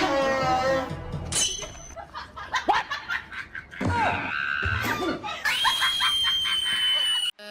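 Background music for a comic pet compilation, mixed with short sound effects and a long steady high tone that cuts off suddenly near the end.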